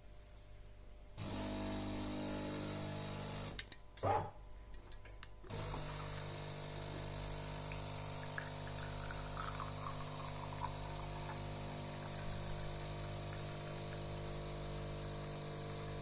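De'Longhi Eletta Explore bean-to-cup coffee machine's pump running steadily as it dispenses. The pump stops briefly about four seconds in, with a short loud noise, then runs on.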